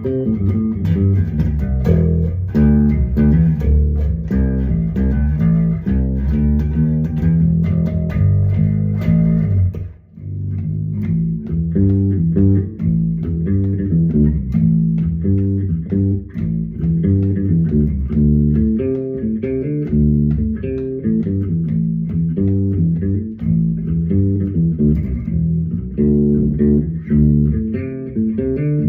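Electric bass riff played with the same settings on two basses: a StingRay for about the first ten seconds, then, after a short break, an Ibanez bass.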